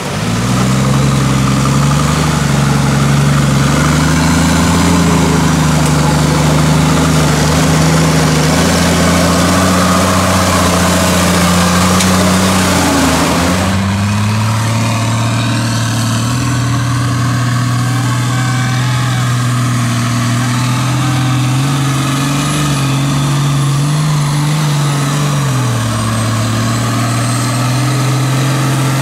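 Off-road truck engines working hard through deep mud, held at high revs with slow rises and dips in pitch. About halfway through the sound switches abruptly to another truck engine running at a lower, steadier pitch.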